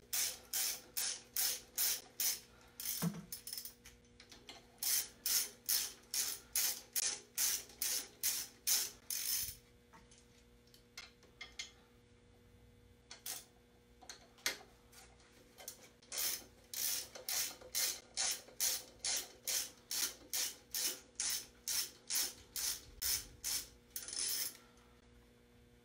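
Hand socket ratchet clicking in runs of about three or four clicks a second, with short pauses between runs, as bolts are backed out of the engine's front accessory drive brackets.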